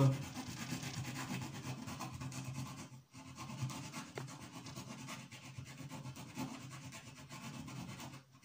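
Needle file scraping in a small hole in drywall, worked back and forth to widen the hole toward about 6 mm. The scraping stops briefly about three seconds in, then continues.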